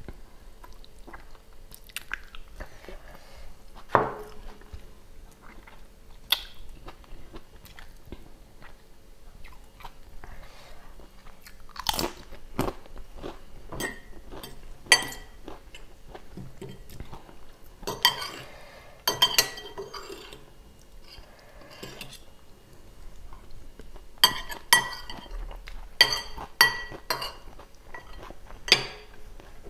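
Chewing and biting as meat is eaten off a beef bone, with sharp clinks of a metal spoon and fork on a ceramic plate, several in quick succession in the second half.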